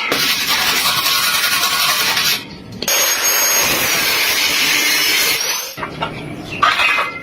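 Metalworking power tool on car body metal: two long stretches of harsh hissing noise, the first about two seconds and the second about three, with a short pause between.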